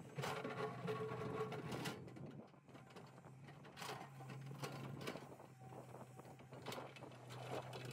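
L&T-Komatsu hydraulic excavator running with a steady low engine hum while its bucket digs into rocky soil: a loud scraping and grinding of stone and earth over the first two seconds, then shorter scrapes about four seconds in and again near the end.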